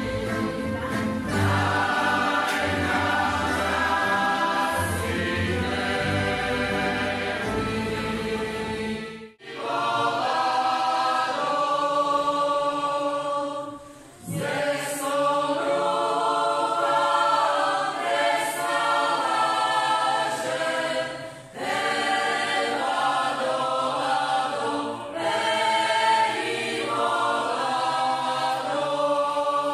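Mixed choir singing a folk song with a tamburica ensemble and its bass accompanying. After a cut about nine seconds in, the choir sings on with little low accompaniment, in short clips joined by brief breaks.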